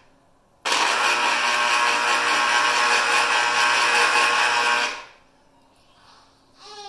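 Electric citrus juicer motor starting suddenly about half a second in as an orange half is pressed onto its reamer cone, running steadily for about four seconds while it reams the fruit, then stopping.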